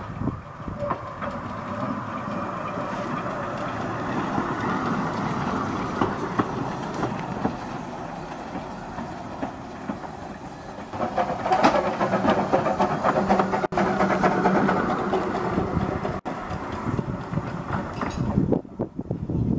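Small 2 ft gauge steam locomotive running light while shunting: its wheels click over the rail joints and points, with a louder stretch for several seconds past the middle.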